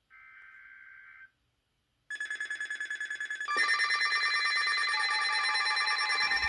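A faint burst of Emergency Alert System header data tones lasts about a second. About two seconds in, a loud, steady, fast-pulsing alert tone of several pitches starts, and more pitches join it about a second and a half later. It is the alert signal that comes ahead of a high wind warning.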